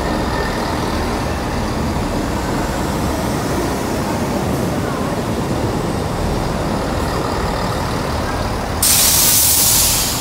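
Transport for Wales Class 158 diesel multiple unit running along the platform, a steady rumble of engine and wheels. Near the end, a sudden loud hiss of released air, a little over a second long, from the train's air brakes.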